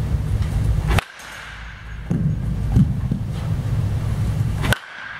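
Two sharp cracks of a baseball bat striking tossed balls, about four seconds apart, over a steady low background rumble.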